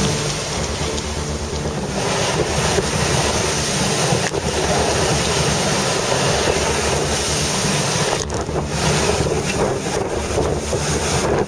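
Wind buffeting the microphone over the steady rush of sea water along the hull of a maxi sailing yacht under way.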